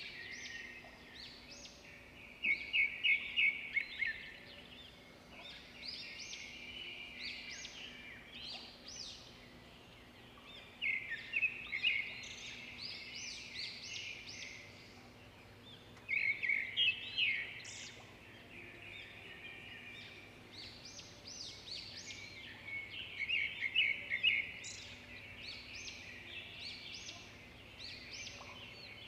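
Small birds chirping and twittering, several calls overlapping in quick bouts every few seconds.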